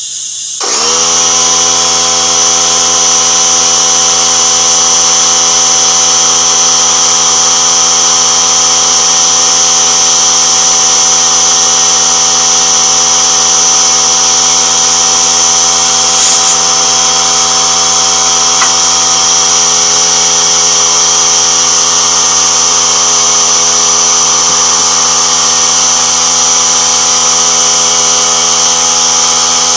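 Air compressor kicking on about half a second in and running steadily, inflating a tubeless motorcycle tire to pop its beads onto the rim.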